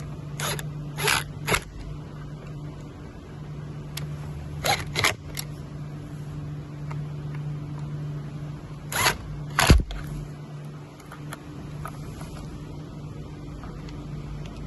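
Plastic zip ties being pulled tight on wiring, each pull a short ratcheting zip: three quick pulls, then three more, then two.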